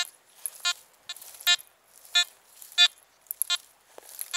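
Nokta Makro Anfibio Multi metal detector beeping in two-tone mode: a short tone each time the coil passes over a buried test target, about every 0.7 seconds, each beep at the same pitch.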